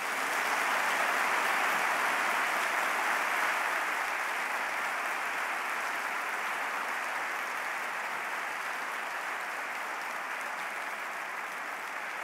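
Audience applauding steadily, a dense clapping that eases off slightly toward the end.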